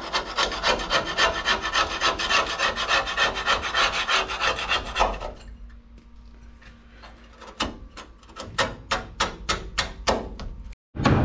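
A scraper being worked over the bus floor to lift old glue. It scrapes in quick repeated strokes for about five seconds, goes quieter, then takes slower separate strokes before the sound cuts off near the end.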